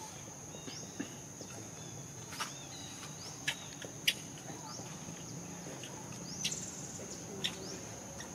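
Steady high-pitched insect drone, with short rising chirps repeating every couple of seconds and a few sharp short clicks or squeaks, the loudest about four seconds in.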